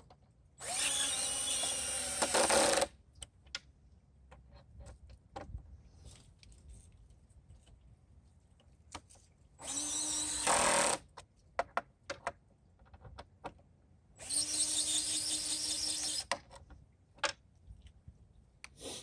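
Cordless drill/driver with a hex bit running in three short bursts of one to two seconds each, driving in screws. Light clicks between the bursts.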